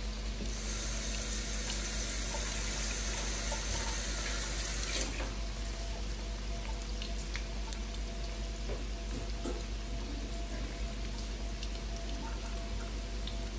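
Battered chicken deep-frying in hot oil in a wok: a steady sizzle with scattered pops and crackles. A brighter hiss over the first five seconds stops suddenly.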